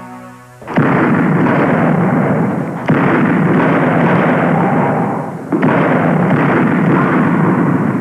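Film soundtrack: a held musical chord is cut off about a second in by heavy gunfire. The barrage comes in three waves, each starting abruptly and running on for two to three seconds.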